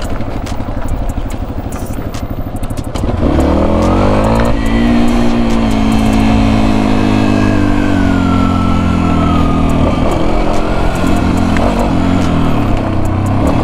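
Yamaha XT250 dual-sport motorcycle's single-cylinder four-stroke engine under way on a rough trail. It revs up about three seconds in, holds high with its pitch slowly easing, drops back around ten seconds, then picks up again near the end.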